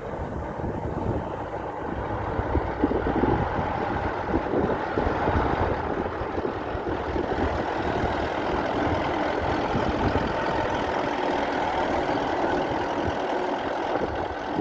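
Leopold 3700 pile driver at work: a dense, rapid hammering over its running engine, without a pause.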